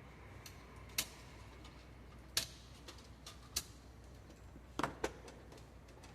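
Irregular sharp clicks and taps, about five clear ones a second or more apart with fainter ticks between, from plastic parts of an Epson L3250 inkjet printer being handled during disassembly.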